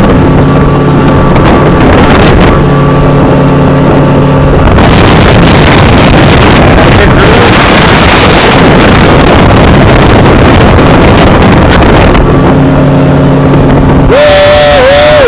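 Mercury Optimax 150 two-stroke outboard running steadily at full throttle at the boat's top speed, with wind noise buffeting the microphone, heaviest through the middle.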